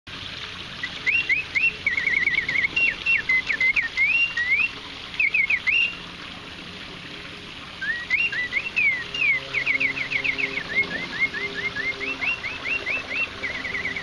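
Antique French singing bird automaton's bellows-driven piston whistle playing mechanical birdsong: quick warbling trills and sliding whistled notes in two long phrases, with a pause of about two seconds between them.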